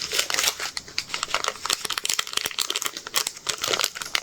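Small plastic packets of diamond painting drills being handled and crinkling, a rapid irregular crackle throughout.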